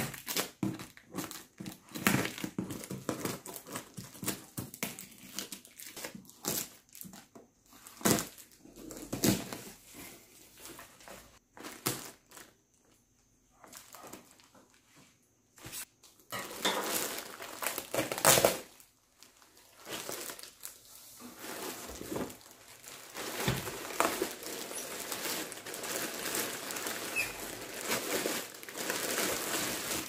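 Scissors cutting through a taped cardboard shipping box, with rips and knocks of cardboard, then clear plastic wrapping crinkling as plastic-bagged bundles are handled. Irregular sharp strokes in the first half, a quieter spell in the middle, and denser, continuous crinkling in the second half.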